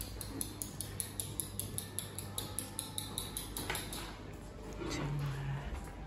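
Quick, light ticking and faint clinks in a stone-floored pub passageway over a low steady hum, with a brief low hum about five seconds in.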